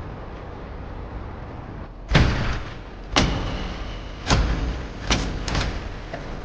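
Five sharp knocks spread over about three and a half seconds, each dying away quickly, the second followed by a brief high ringing tone, over a steady background hiss.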